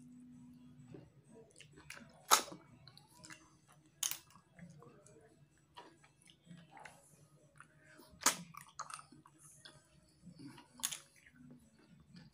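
A person eating tutut, small freshwater paddy-field snails in spicy broth: four sharp, loud sucks as snails are sucked out of their shells, with softer smacking and chewing between.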